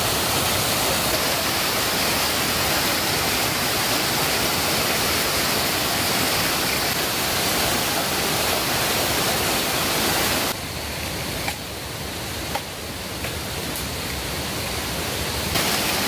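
Small waterfall rushing steadily over rocks close by. About ten seconds in the rush drops a little quieter and duller.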